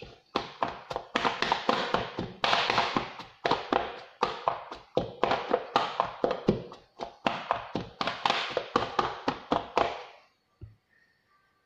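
Hands rubbing and crumbling a damp kurakkan (finger millet) and steamed wheat flour puttu mixture in a stainless steel bowl. It makes a rapid run of rustling scrapes and taps of the fingers against the metal, stopping about ten seconds in.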